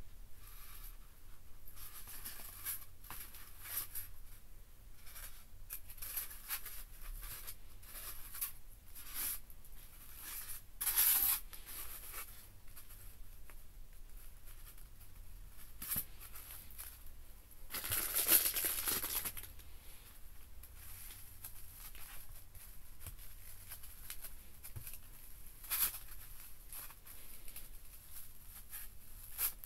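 Close handling noises of a sawtail surgeonfish being skinned: fingers rubbing, scraping and peeling the skin against a styrofoam board. Louder rustling, tearing bursts come about 11 and 18 seconds in, with a sharp scrape later.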